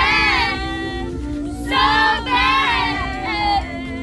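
Music with a high-pitched singing voice whose melody bends and changes every fraction of a second, over held low notes.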